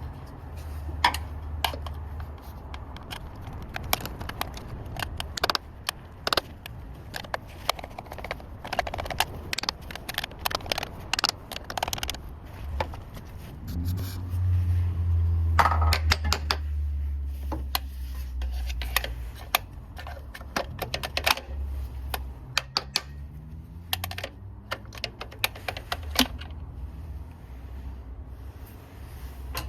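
Many scattered sharp metallic clicks and clinks, like tools or small metal parts being handled, over a steady low hum that swells for a few seconds about halfway through.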